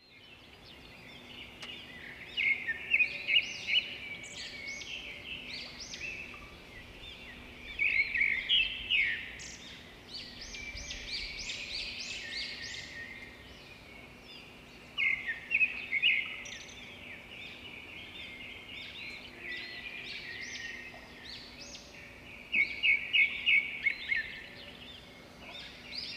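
A songbird singing: a loud, quick chattering phrase repeated about every six to seven seconds, with softer chirps in between.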